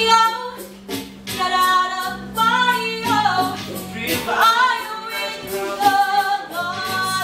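Group of voices singing a musical-theatre number, female voices prominent, with held notes and sliding pitches.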